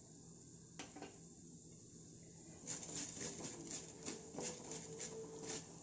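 Wooden spatula stirring dry-roasting coriander seeds, dal and peppercorns in a clay pot. The strokes scrape and rattle the grains against the pot, in a run of about three a second through the second half, after a single light tick about a second in.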